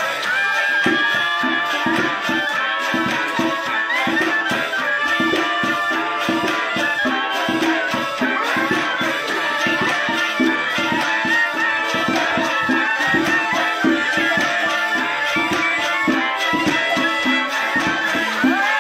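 Home music-making: a hand drum beaten in a fast, steady rhythm, with rattling percussion and a melody above it.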